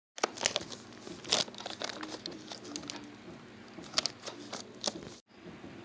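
Packaging being handled and torn open: irregular crinkling with sharp crackles, cutting off suddenly about five seconds in.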